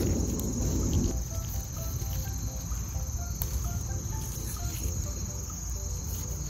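Crickets trilling steadily in a high, even chirr, with a brief rustle in the first second.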